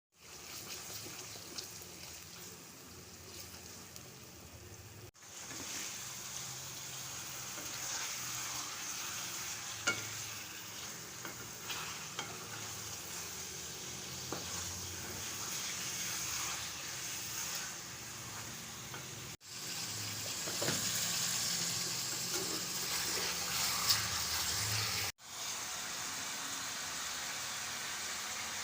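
Food sizzling in hot oil in a karahi while being stirred, with occasional short clicks and scrapes of the spoon against the pan. The steady frying hiss breaks off abruptly three times where clips are joined.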